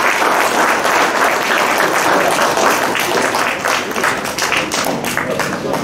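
Audience applauding, dense at first and thinning into more separate claps in the second half.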